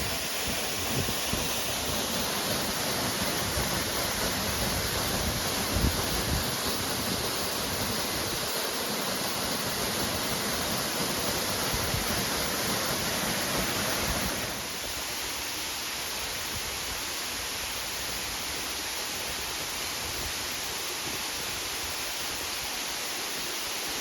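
Waterfall rushing: a steady hiss of falling water, with low gusty rumbles in the first half. About 14 seconds in, the level steps down slightly and the rumbles fade.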